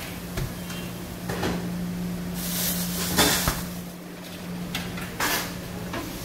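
Metal scoop and stainless steel bowl scraping and knocking, with plastic rustling, as red chili powder is scooped from a bag and tipped into a steel bowl on a kitchen scale: a series of short scrapes, the loudest knock about three seconds in, over a steady low hum.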